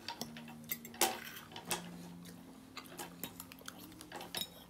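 A spoon clicking and scraping against a dish and food wrapping while eating, a dozen or so small sharp clinks. A faint low steady hum sits underneath.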